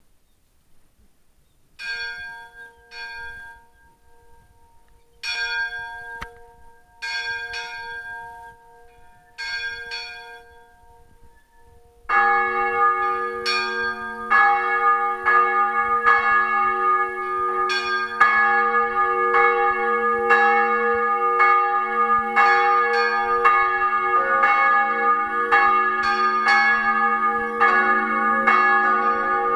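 Church bells swinging and ringing in the tower, heard close up: at first a single higher bell strikes only a few times as it gets going, about 12 s in a deeper bell joins and the peal becomes a steady run of strokes, and about 24 s in a still deeper bell joins. The tower holds three bells cast by Alexander Buchner in 1923–1924.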